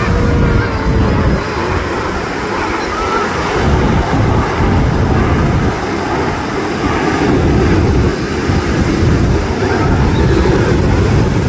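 Wind gusting against the microphone, with surf breaking on the beach.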